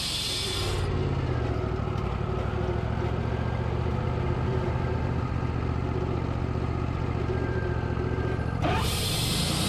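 Sawmill engine running steadily. A high hiss over the engine stops sharply about a second in and returns just as sharply near the end.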